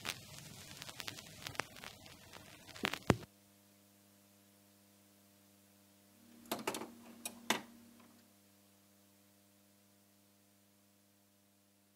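Turntable stylus riding the run-out of a 7-inch vinyl single with crackle and clicks, ending in a loud click about three seconds in as the tonearm is lifted. A steady mains hum from the record player is left behind. A short cluster of clicks and knocks comes about halfway through.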